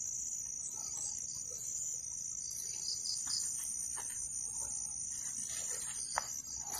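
Night chorus of crickets: a steady, high, continuous trill with pulsed chirps repeating over it, and a faint click near the end.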